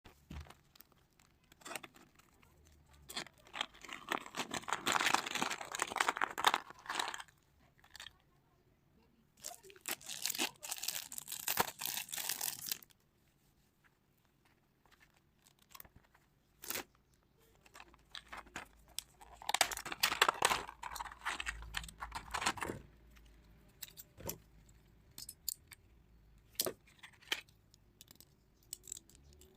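Stationery packaging being torn open and crinkled by hand in three long bursts, with scattered small clicks and taps between them.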